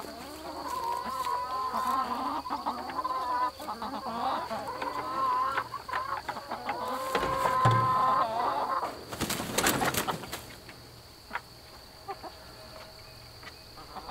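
Hens clucking and calling, with long, wavering drawn-out notes, for about the first eight seconds. A brief rustling noise comes about nine seconds in.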